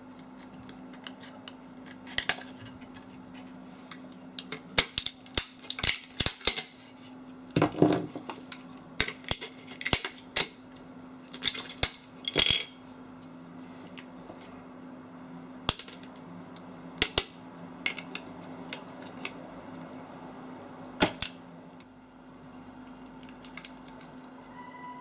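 Irregular metallic clicks and knocks of hand tools and loose metal parts as a microwave oven is taken apart for scrap, over a steady low hum. The clicks are thickest in the first half and thin out to a few single knocks later.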